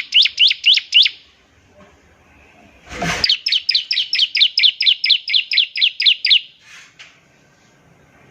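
Ciblek (bar-winged prinia) singing its rapid-fire 'ngebren' song: runs of quick, repeated, high sweeping notes, about six a second. One run ends about a second in, and a longer run goes from about three seconds in to six and a half. A brief rustle or thump comes just before the second run.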